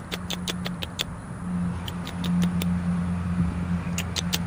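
Quick runs of light ticking splashes as a baited eel line is jiggled in a small water-filled hole, first during the opening second and again near the end, over a steady low machine hum.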